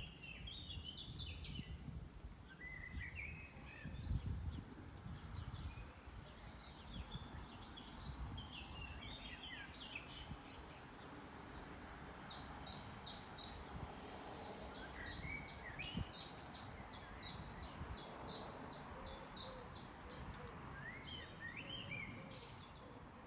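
Songbird singing in short chirping phrases, with a long run of quick repeated notes, about three a second, in the middle lasting several seconds. Underneath, a low rustling rush of wind in a tree.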